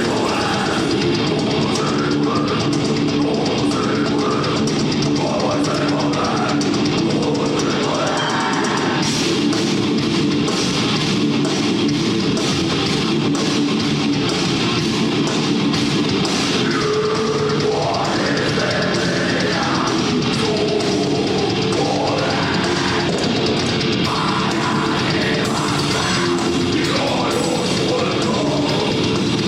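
A heavy metal band playing live: distorted electric guitars over a drum kit, steady and loud throughout.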